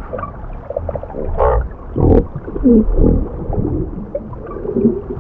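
Hippopotamus calls heard underwater: low rumbling groans with a few short pitched calls, the loudest about two and three seconds in.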